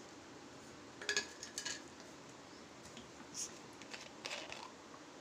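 A few light clinks and taps of a utensil against a dish, scattered through a few seconds, while salt is added to raw chicken strips in a bowl; quiet room tone between them.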